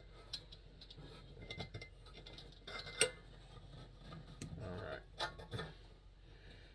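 Light metallic clicks and scraping as the generator of a Coleman 220J lantern is unscrewed by hand and worked out of the lantern, with one sharper click about three seconds in.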